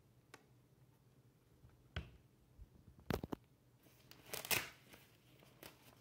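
Handling noises from a Fluke 279 FC multimeter and its test leads: a few small clicks and a knock, a quick double click just after three seconds in, then a short louder rustling scrape about four and a half seconds in.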